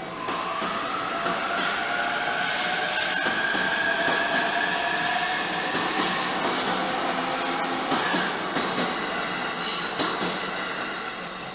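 A train passing over a level crossing close by, its motor tone rising slowly in pitch as it picks up speed, with several short high-pitched wheel squeals.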